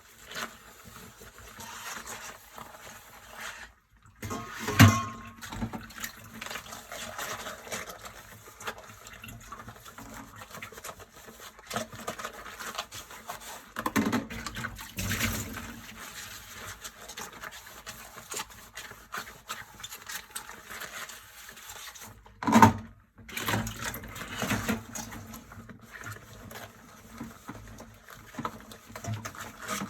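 Dishes being washed by hand at a kitchen sink: water running and splashing while dishes are handled. Sharp knocks of dishes against each other or the sink come about five seconds in and again about three-quarters of the way through, with smaller ones in between.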